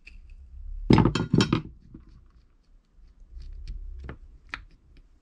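A steel screwdriver clinking and knocking against a metal Bing 33 carburettor as its fuel filter is taken off: a cluster of loud clattering knocks about a second in, then light clicks and two sharper clicks near the end.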